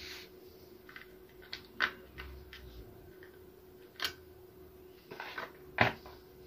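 Irregular sharp clicks and taps of a screwdriver and small computer parts being handled, the loudest about two, four and six seconds in, over a faint steady hum.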